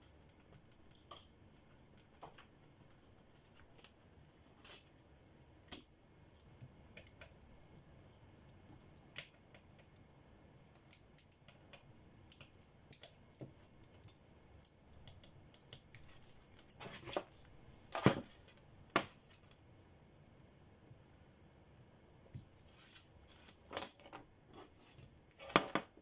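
Irregular small clicks, taps and scratches of hard objects being handled on a work surface, with louder bursts of scraping about two-thirds of the way through and again near the end.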